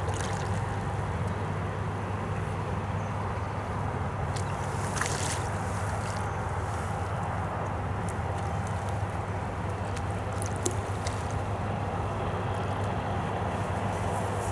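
Steady wind rumble on the microphone over the sound of the river, with a few short splashy hisses from the water surface, about five seconds in, near eleven seconds and at the very end.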